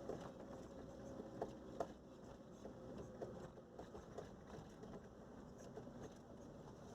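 Faint low rumble inside a car, with scattered light clicks and small rattles.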